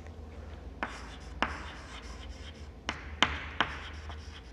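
Chalk writing on a blackboard: a string of short, sharp taps and scratchy strokes as a word is written.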